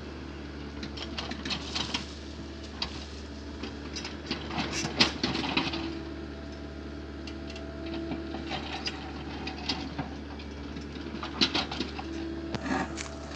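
Komatsu hydraulic crawler excavator running steadily while its bucket digs into soil and roots, with scraping and sharp cracks of breaking wood and earth. The loudest crack comes about five seconds in, and there is another cluster near the end.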